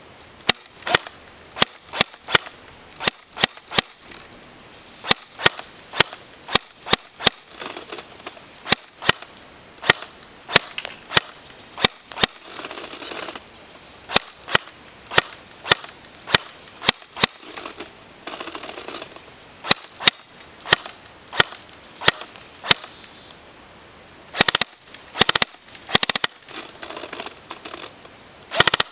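Airsoft Thompson 1928 replica (CYMA electric gun) firing single shots at a target, a sharp crack about twice a second with a few short pauses. Several brief hissy stretches come between the shots.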